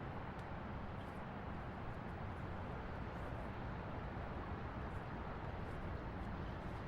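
City traffic ambience: a steady wash of passing vehicles and road rumble, with no single vehicle standing out.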